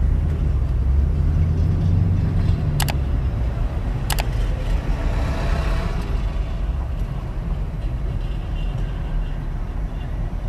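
Steady low engine and road rumble heard inside a moving car's cabin, heaviest for the first few seconds. Two sharp clicks come about three and four seconds in, and a windshield wiper swishes across the glass around five to six seconds in.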